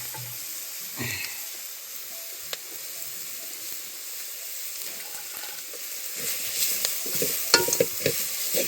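A steady, even hiss with scattered clicks and knocks, which grow busier near the end.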